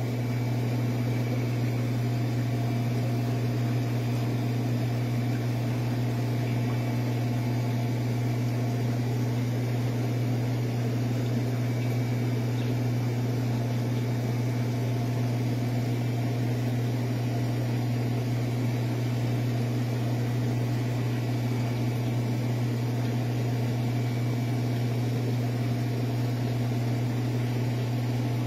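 Steady low electrical hum of aquarium pump and filter equipment, holding one pitch without change, over a faint hiss.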